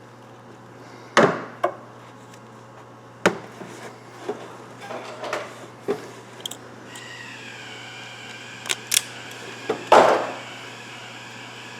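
Tools and parts being handled: a string of irregular sharp clicks and knocks, the loudest about a second in and near the end, over a steady low hum. A steady higher whine joins about seven seconds in.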